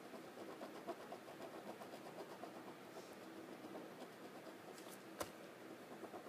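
Faint scratching of a pen on paper while a drawing is colored in, with one sharp click about five seconds in.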